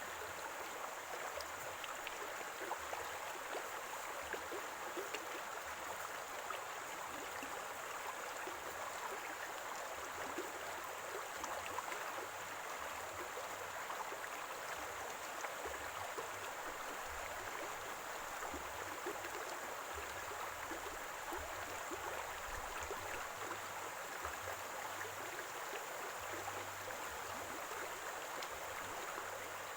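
Shallow stream of running water gurgling steadily, with fine splashing and trickling over stones.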